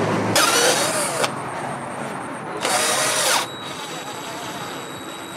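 Cordless drill run in two short bursts, its motor whine rising and falling in pitch each time as it drills into a torch tube.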